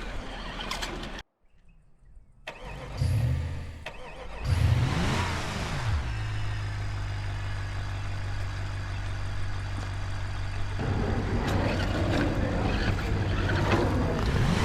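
Full-size engine sound effect dubbed over an RC truck: after a brief dropout the engine starts about three seconds in, revs, then settles into a steady idle. A broad rushing noise joins about eleven seconds in.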